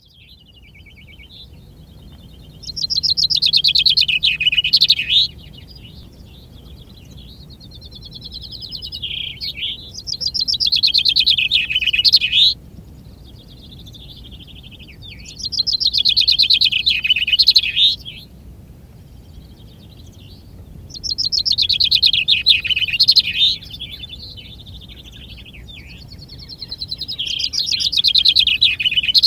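A male common chaffinch, a contest finch whose songs are being counted, sings its full song five times, about every five to six seconds. Each song is a trill that drops in pitch and ends in a quick flourish. Fainter songs from neighbouring chaffinches fill the gaps between them.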